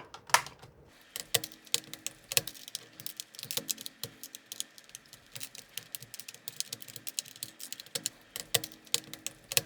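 Rapid, irregular plastic clicks and snaps of keycaps being pried off a Freewrite Alpha's mechanical keyboard, several a second.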